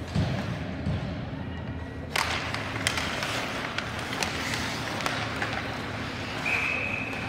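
Ice hockey play heard from the stands: sharp knocks of stick and puck, the loudest a crack about two seconds in, over steady rink noise. A short, steady, high-pitched whistle sounds near the end.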